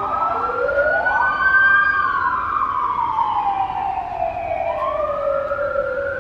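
Emergency vehicle siren wailing: two overlapping tones that slowly rise and fall, one sweeping up again near the end.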